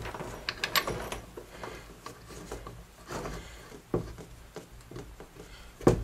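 Handling noise as a refrigerant hose's brass fitting is fitted and threaded onto an A/C manifold gauge set port: scattered light clicks and rubbing, with a sharper knock near the end.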